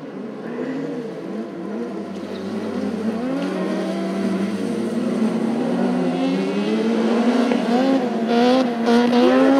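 Engines of two or more autocross buggies racing on dirt, revving up and down through the gears and growing steadily louder as the cars come nearer.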